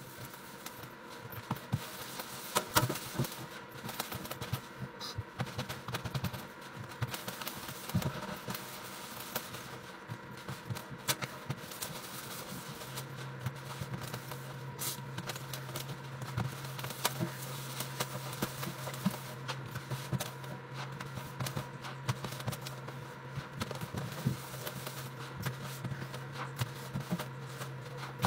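A soapy sponge scrubbing a stainless steel sink: irregular rubbing and scraping strokes with the crackle of suds. A steady low hum starts about halfway through.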